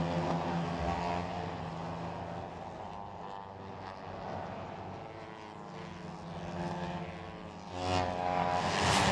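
Racing motorcycle engines running at high revs, fading into the distance, then louder again about eight seconds in as a pack of bikes approaches with rising pitch.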